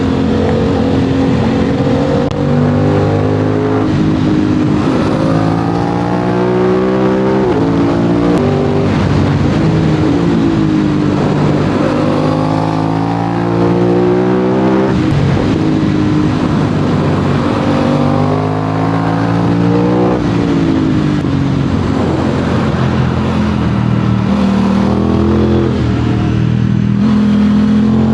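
Aprilia RS 660's parallel-twin engine through an SC-Project SC1-R aftermarket exhaust, loud throughout, its pitch climbing under acceleration and falling away again and again as the bike is ridden hard through bends.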